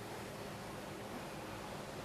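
Steady background hiss with a faint low hum: room tone with no distinct event.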